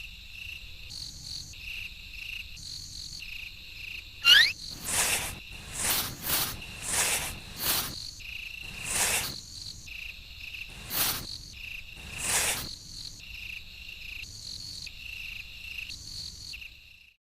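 Cricket-like insect chirping in a steady, pulsing rhythm. Through the middle it is overlaid by a series of about ten short, louder noisy swishes, with a quick sweep in pitch just before the first of them.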